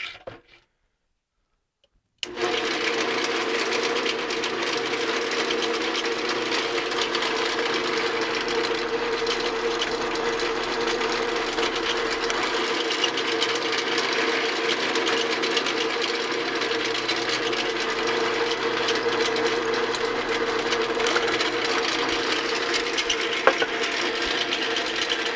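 Electric drill running steadily under load, drilling holes in a mounting bracket. It starts about two seconds in and holds one steady pitch.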